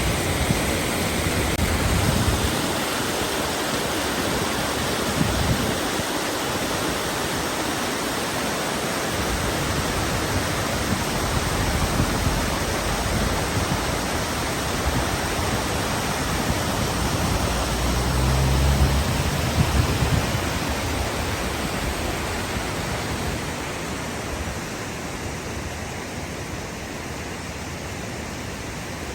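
Steady hiss of falling rain, with a few low rumbles now and then; it eases a little near the end.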